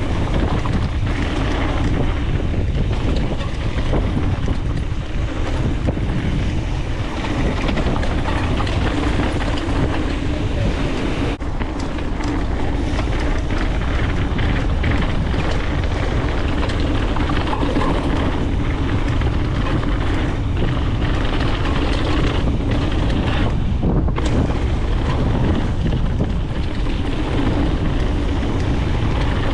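Mountain bike descending a trail at speed: wind buffeting the camera microphone over steady tyre noise, with frequent knocks and rattles as the bike runs over rough ground.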